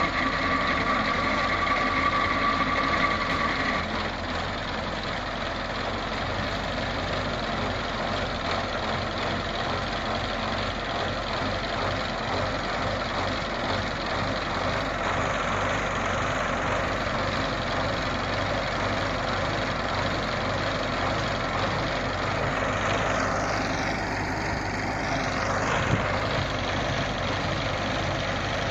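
KamAZ 55111 dump truck's V8 diesel engine idling steadily while the loaded tipper body is raised. A steady whine rides on the engine for the first four seconds, then stops.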